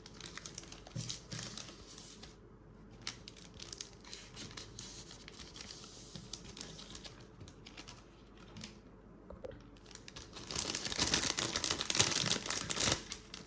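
Thin plastic sheets of a phone skin crinkling and rustling as they are handled, with a louder stretch of crinkling near the end.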